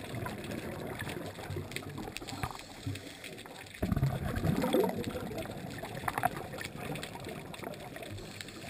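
Muffled underwater water noise heard through a camera's waterproof housing, with a louder burst of bubbling and gurgling about four seconds in.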